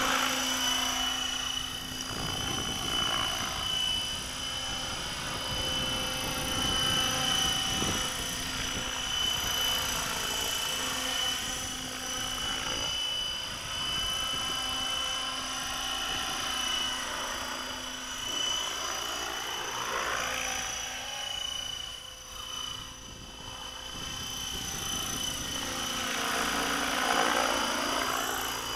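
Electric HK600GT RC helicopter in flight, its 1200KV brushless motor and rotor giving a steady high whine. The sound swells and fades as it flies back and forth, loudest near the end.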